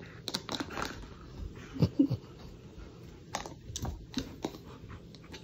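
A husky playing with a red rubber chew toy: scattered light clicks and taps from the toy and its paws on the floor. The loudest are two knocks about two seconds in.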